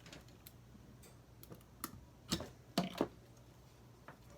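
Irregular light clicks and knocks, about seven of them with the loudest two around the middle, from the plug and control buttons of a Kenmore window air conditioner being handled as it is plugged in and started. A faint steady low hum runs underneath.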